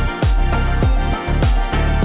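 Background music: an instrumental track with a steady beat of deep drum thumps about twice a second.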